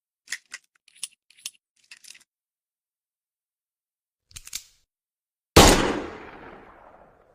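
Smith & Wesson Model 10 .38 Special revolver: a series of light metallic clicks from the action, two more clicks about four and a half seconds in, then a single loud shot whose report fades away slowly over nearly two seconds.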